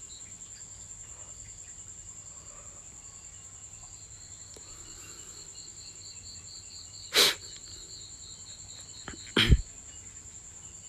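Steady high-pitched insect chirping, pulsing about four times a second, with two short knocks past the middle and near the end, the second one deeper and louder.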